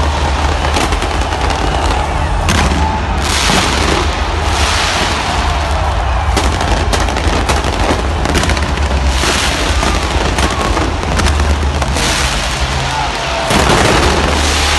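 Fireworks exploding in rapid succession: a dense barrage of bangs and crackles with repeated booms, the loudest bursts near the end.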